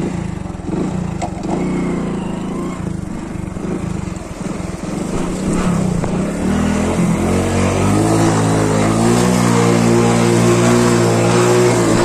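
Hero HF Deluxe's single-cylinder four-stroke engine running as the motorcycle rides through shallow water, with water splashing. About halfway through, the engine settles into a steady, louder note under load.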